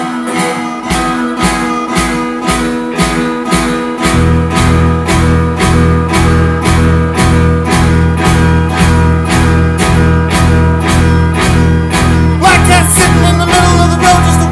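Live rock band starting a song: electric guitar chords over a steady drum beat of about two hits a second. A heavy bass comes in about four seconds in, and a wavering lead line enters near the end.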